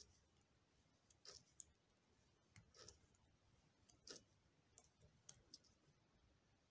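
Near silence with faint, irregular clicks and soft scrapes of metal knitting needles working yarn.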